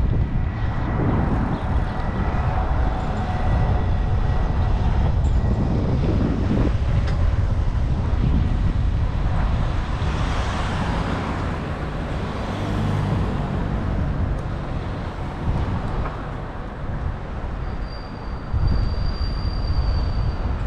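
Wind rushing over the microphone of a camera riding on a moving bicycle, mixed with road traffic noise. A thin, high steady whine sounds for a couple of seconds near the end.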